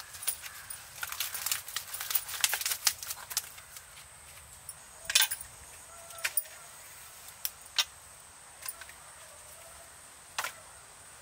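Clicks and light knocks of fresh fish being handled and dropped into an earthen pot and onto a stone slab. They come thickly for the first few seconds, then as single knocks every second or two. A faint steady high hiss runs underneath.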